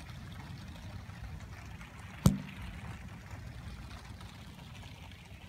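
Steady rain during a thunderstorm, with a single sharp knock about two seconds in.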